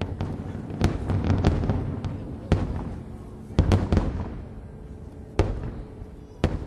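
Aerial firework shells bursting in a quick series of sharp booms, about eight in all, with a rolling rumble between them; the bursts come further apart in the last few seconds.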